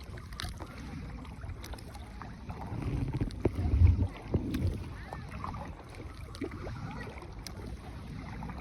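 Small paddled rowboat on the water: water noise and paddle sounds with wind on the microphone, a louder low rumble about three seconds in.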